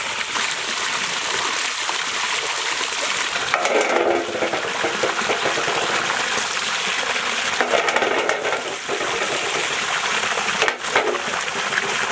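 Water gushing steadily from a pipe outlet, with a few knocks of wooden mashers near the end.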